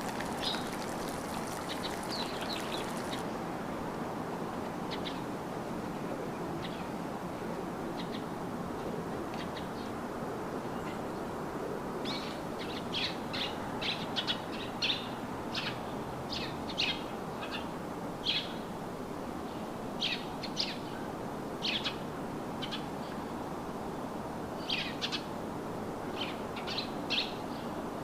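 Songbirds chirping in short, high calls, sparse at first and much busier from about halfway through, over a steady rushing background noise.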